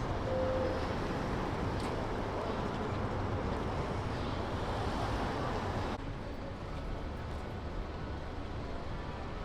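Steady outdoor street noise with a low engine and traffic rumble. It drops slightly and turns duller about six seconds in.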